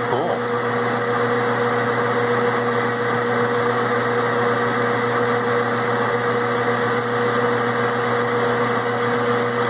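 Metal lathe running steadily: a constant motor hum with a steady mid-pitched whine as the spindle turns a Delrin rod.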